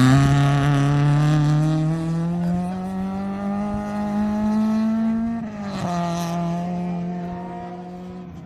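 Rally car engine at full throttle, its pitch climbing steadily in one gear for about five seconds. The pitch then drops sharply at an upshift, and the engine pulls on while fading as the car moves away.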